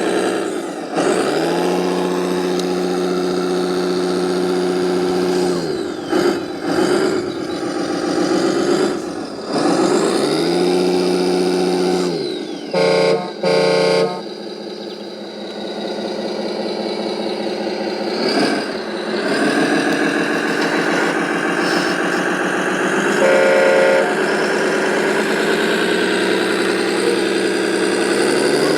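Heavy truck engine sound rising in pitch, holding steady and dropping back several times, as from an RC truck's sound unit. A double horn honk sounds near the middle and a single honk later.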